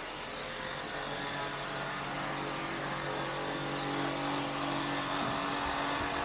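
Street traffic noise with a vehicle engine humming steadily, the hum fading out about five seconds in.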